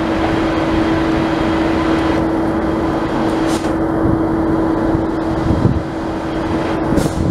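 Victorian Railways K-class 2-8-0 steam locomotive K190 moving slowly with its cylinder drain cocks open: a steady hiss of steam, with a couple of heavier chuffs near the end. A steady hum runs underneath.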